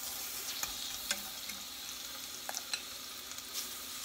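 Seasoned chicken pieces sizzling steadily in a hot skillet, with a few light clicks.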